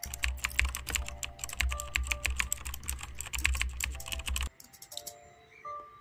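Fast typing on an HP laptop keyboard: rapid key clicks that stop abruptly about four and a half seconds in, with soft music underneath.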